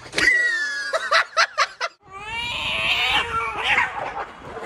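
Cats fighting, yowling and caterwauling: a wavering yowl at the start, a few short sharp cries about a second in, then a longer drawn-out yowl from about two seconds in.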